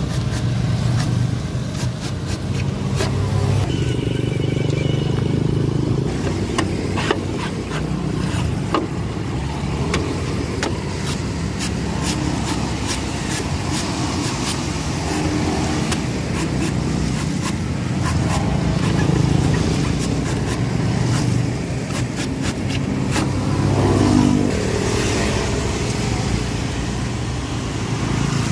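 Repeated sharp chops of a steel cleaver cutting the husk of a young green coconut on a wooden chopping block, coming at an irregular pace over a steady rumble of passing motor traffic.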